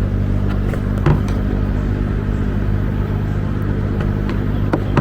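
Steady low motor hum, with two light clicks, about a second in and near the end, from handling a bulb socket cap.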